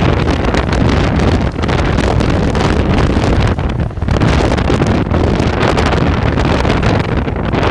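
Wind buffeting the microphone: a loud, steady rush of air with a low rumble.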